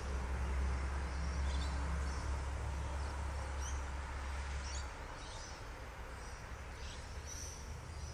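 Short, scattered bird chirps in the open at dusk, over a low rumble that fades out about five seconds in.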